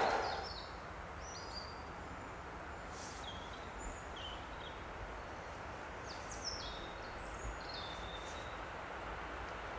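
Scattered short, high bird chirps over a quiet, steady outdoor hush. A passing train's noise cuts off within the first half second.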